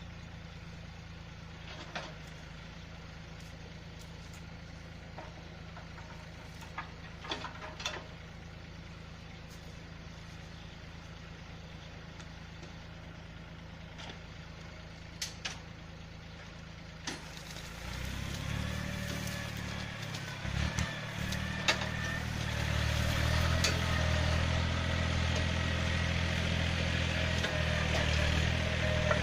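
Yanmar 1145 tractor's diesel engine idling steadily, with a few scattered clicks and knocks. About eighteen seconds in it revs up and runs louder until the end.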